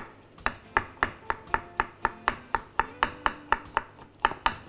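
Kitchen knife chopping cucumber finely, about four even strokes a second, with a short pause before the last two.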